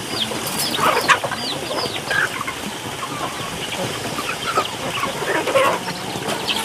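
Domestic hens clucking as they feed, with chicks peeping in a run of short, high calls and a few sharp clicks about a second in.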